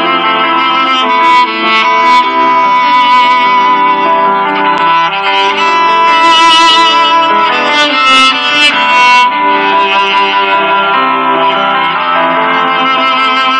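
Background music: a violin melody over plucked guitar accompaniment.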